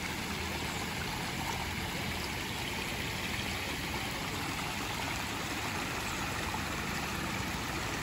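Floodwater rushing steadily through a small irrigation canal, an even continuous rush with no break.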